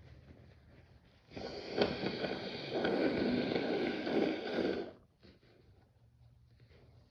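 A person with a stuffy head cold letting out a long, forceful noisy breath through a blocked nose, starting about a second in, peaking sharply at first, and cutting off abruptly after about three and a half seconds.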